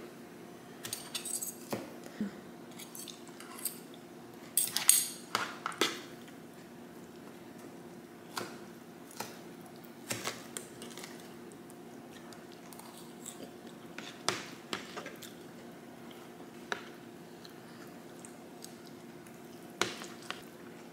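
Metal spoon and fork scraping and clinking against a plastic bowl as food is cut and scooped, in scattered sharp clicks with a quick run of louder clinks about five seconds in. A faint steady hum lies underneath.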